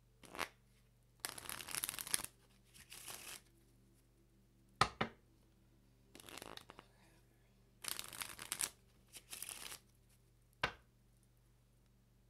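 A deck of tarot cards being shuffled by hand in about five short bursts of rustling, with a few single sharp clicks in between.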